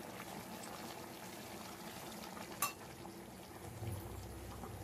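Chicken curry simmering in an open pressure cooker, a faint, steady bubbling, with a single sharp clink about two and a half seconds in. A low hum joins near the end.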